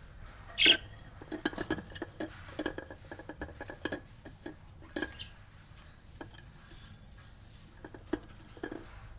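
Budgerigars scratching and tapping about in their cage: a run of quick, light clicks and scratches, busiest in the first four seconds and sparser later.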